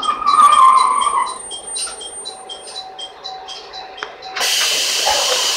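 A rapid high ringing at about five strokes a second, with a brief squeal in the first second. About four seconds in comes a loud, even hiss of compressed air as the train's pneumatic passenger door opens at the stop.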